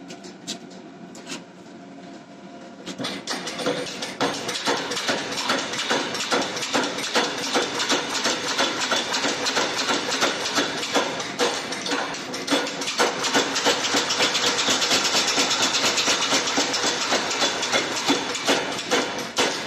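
Power hammer forging a glowing Damascus steel billet: a few light taps at first, then from about three seconds in a fast, steady run of heavy blows that carries on to the end.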